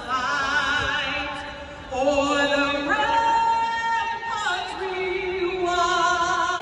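A singer holding long notes with a wide vibrato, stepping to a new note about once a second, with no instruments heard.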